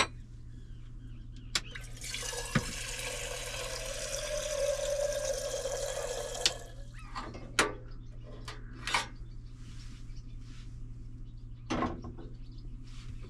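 Water running into a stainless steel kettle for about four seconds, the filling note rising slightly before the flow stops sharply. A few clinks and knocks follow as the kettle is handled and set on the gas stove.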